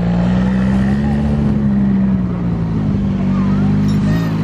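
Skid-steer loader's engine running steadily at a fairly constant speed, its pitch wavering slightly.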